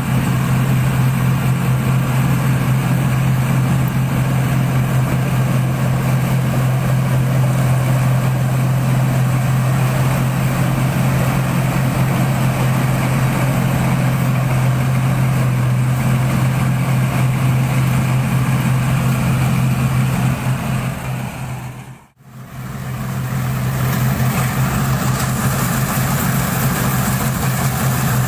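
The engine of an NH 8070 tracked rice combine harvester running steadily with a loud, even low drone. About three-quarters of the way through, the sound drops away to almost nothing for a moment, then comes straight back.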